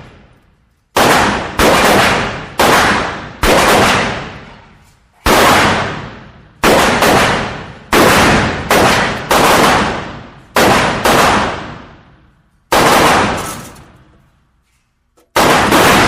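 Gunshot sound effects: about a dozen shots fired at irregular spacing, some singly and some in quick pairs, each a sharp crack with a long echoing decay.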